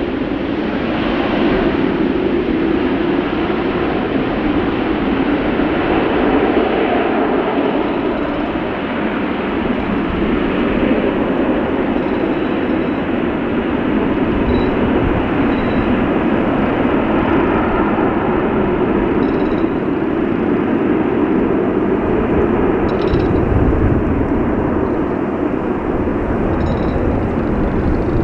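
Boeing 707 jet engines running at high power: a loud, steady rush of jet noise that holds level throughout.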